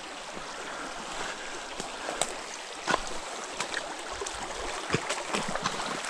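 A shallow creek running steadily, with irregular crunches and snaps of footsteps through brush and leaf litter.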